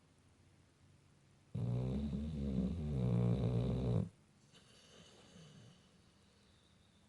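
Pit bull–boxer mix dog snoring: one loud, pitched snore starting about a second and a half in and lasting about two and a half seconds, followed by a much quieter breath.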